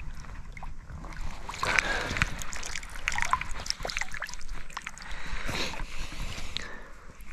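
Water splashing and sloshing in a shallow river: a run of irregular splashes from about a second and a half in to near the end, loudest early on, over a steady low rumble.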